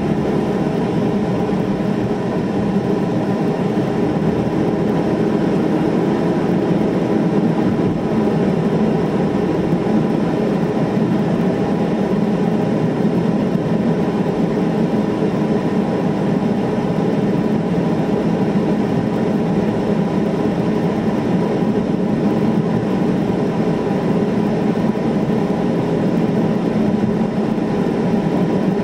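Steady cabin noise of a moving car: engine hum and tyre noise on the road, heard from inside the car.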